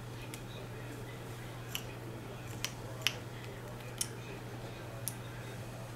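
Needle-nose pliers clicking against the hardware of an RC crawler's aluminum servo arm and steering link: several sharp, small clicks at uneven intervals, the loudest about three seconds in, over a steady low hum.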